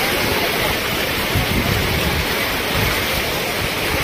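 Fast-flowing river current rushing and splashing around a bather holding onto a chain; a steady, loud rush of water.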